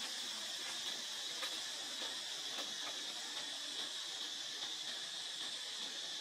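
A steady high-pitched hiss with a few faint clicks.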